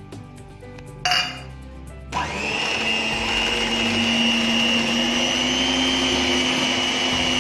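Electric stand mixer's twin beaters beating cream cheese with sugar and lemon juice: the motor whirs up to speed about two seconds in and then runs steadily with a high whine. A short loud noise comes about a second in, as the ingredients are tipped in.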